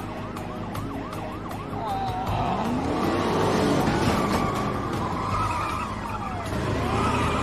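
Police siren yelping fast, then switching to a slow rising-and-falling wail, over a car engine and road rumble. In the middle, tyres squeal as the sedan ahead skids sideways.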